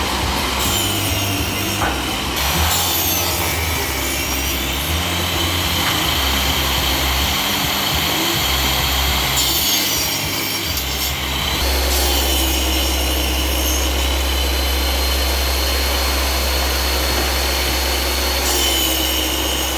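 A woodworking power machine running and cutting wood, a steady mechanical noise with a low hum that becomes constant about twelve seconds in.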